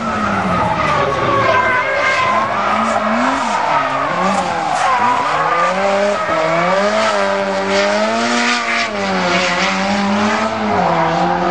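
Nissan S13 Silvia's turbocharged SR20DET four-cylinder revving up and down over and over as the car drifts, with the tyres squealing and skidding.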